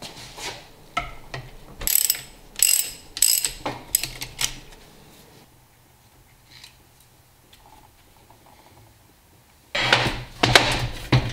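Steel tools clicking and clanking against a Dana 20 transfer case and its shift rods: a handful of sharp metallic knocks in the first half, a quiet stretch, then a quick dense run of clicks near the end.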